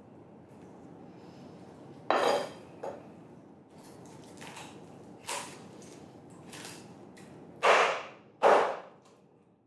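Kitchen knife chopping through a whole roast chicken onto a wooden cutting board: sharp chops, the loudest about two seconds in and two close together near the end, with lighter knocks between.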